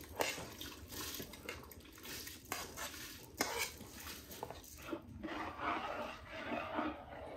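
Grain poured from a bowl into water in a large aluminium pot, with the bowl clinking sharply against the metal rim a few times. In the last couple of seconds a hand stirs and swishes the water in the pot.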